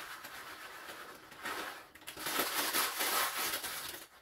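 Kitchen handling noises while making soup: rustling and light clattering, in a short stretch about one and a half seconds in and a longer one from about two seconds in until near the end.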